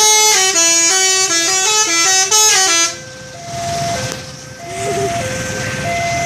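A truck's telolet multi-tone musical horn plays a fast stepped melody, loud, and cuts off about three seconds in. After that, a quieter two-note tune alternates slowly over the low rumble of the vehicle.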